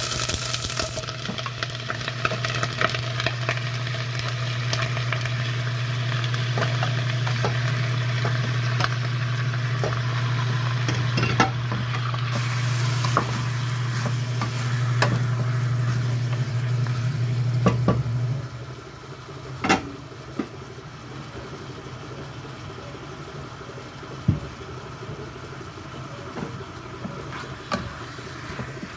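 Raw chicken pieces sizzling in a stainless pot of sautéed garlic and onions as they are stirred with a wooden spoon, with scattered knocks of the spoon against the pot. A low steady hum underneath cuts off about two-thirds of the way through, and the sizzle is quieter after that.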